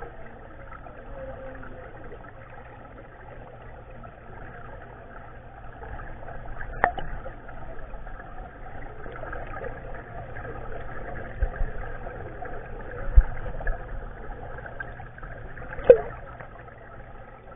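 Muffled underwater noise heard through a submerged action camera's waterproof case, with three sharp knocks spread through it as stingrays bump and mouth the camera housing.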